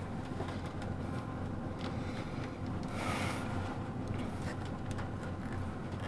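Tractor engine running steadily at idle, with light rustling and a few small clicks of things being handled.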